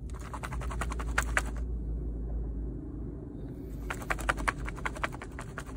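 Rapid, irregular light clicks and taps, in two runs with a pause of about two seconds between them, over a steady low rumble of wind on the microphone.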